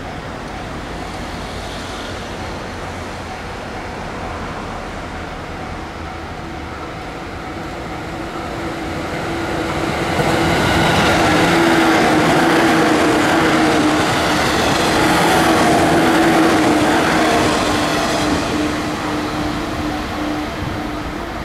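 JR 117 series electric multiple unit, two sets coupled, passing on the track: the running and rail noise swells from about eight seconds in, stays loud for about eight seconds with a steady hum through it, then fades as the train goes away.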